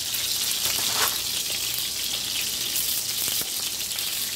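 Chicken breasts frying in oil in a cast-iron grill pan: a steady sizzle, with one light knock about a second in.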